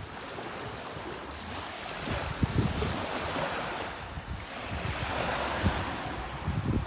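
Ocean surf: small waves breaking and washing ashore, swelling and ebbing every couple of seconds, with wind gusting on the microphone.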